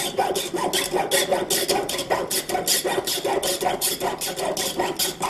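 Jeweller's saw blade cutting through a coiled metal wire held in coil cutting pliers, in fast, even back-and-forth strokes of about five a second, each stroke a sharp rasp over a steady metallic ring.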